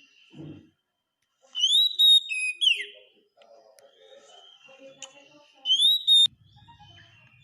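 Oriental magpie-robin (kacer) singing: two loud phrases of rising, clear whistled notes, about two seconds and six seconds in, with quieter chattering notes between.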